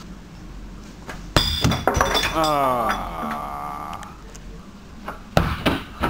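A football hitting a chair and glass root beer bottles: a hard thud with glass clinking about a second and a half in, followed by a couple of quicker knocks. A voice gives a long falling cry after the knocks, and two more sharp knocks come near the end.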